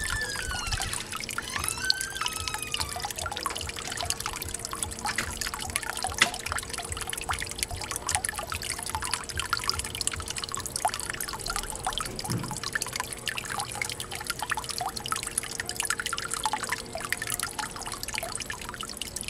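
Water falling from a PVC pipe outlet into a small garden pond: a steady trickle and splash, thick with small drips, over a faint steady hum.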